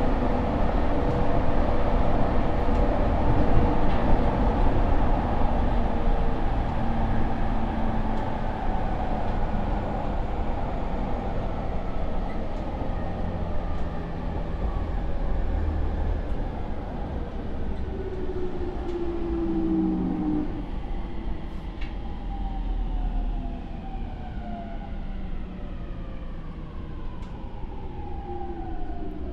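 Mitsubishi IGBT VVVF inverter and traction motors of a JR East E231-800 series electric train, heard inside a motor car over the rumble of wheels on rail. The motor whine is several tones together that fall steadily in pitch through the second half as the train brakes to a stop at a station.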